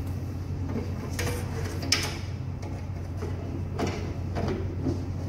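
Hands handling cables and connectors in a radar display console, a few short clicks and knocks of plastic and metal parts, the sharpest about two seconds in. A steady low hum runs underneath.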